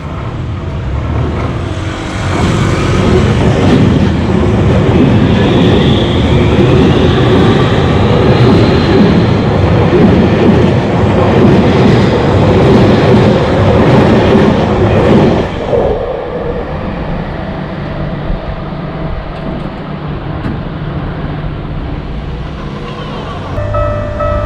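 Electric commuter train passing close by on the rails, a loud, even rumble that builds about two seconds in and holds for some thirteen seconds. It drops off sharply to a quieter rumble as the train clears.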